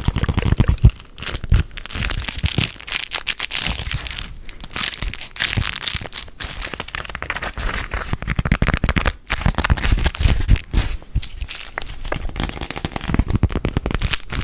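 Close-miked ASMR hand sounds right on the microphone: a dense, continuous crackling and crinkling with soft thumps.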